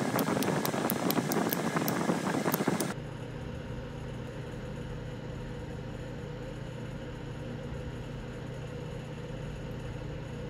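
Copper-tipped pressure flaker working the edge of a Coshocton flint point: a dense scraping with crisp ticks about four times a second, stopping suddenly about three seconds in. After that a steady low mechanical hum.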